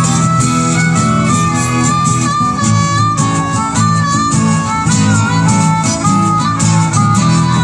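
Live acoustic band music: a harmonica playing a bending melody line over two strummed acoustic guitars.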